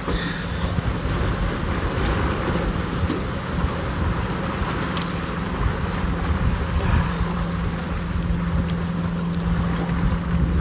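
An engine running with a steady low hum, under a continuous rushing noise and wind on the microphone.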